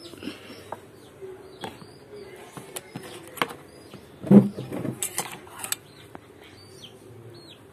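Small birds chirping repeatedly in the background, with scattered light clicks and clinks of a small steel pot and spoon, and a louder knock about four seconds in.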